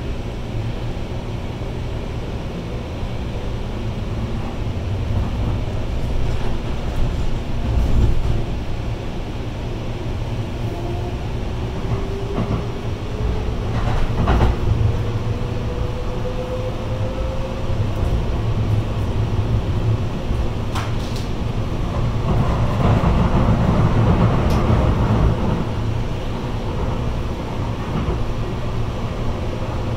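Light rail car running, heard from inside the passenger cabin: a steady low rumble with a few sharp clicks from the wheels on the track. In the middle a faint whine slowly rises in pitch as the car picks up speed, and the running noise grows rougher and louder near the end.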